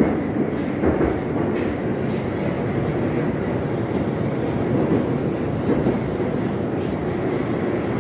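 Moscow Metro 81-760/761 Oka train heard from inside the car while running through the tunnel: a steady rumble of wheels on rails, with a few sharp knocks.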